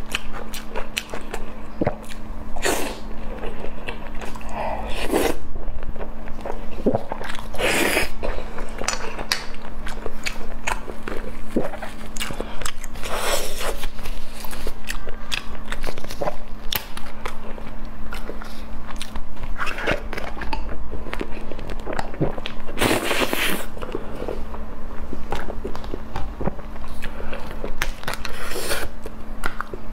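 Close-miked eating sounds: a person biting and chewing food, with many small clicks and several brief louder bursts. A steady low hum runs underneath.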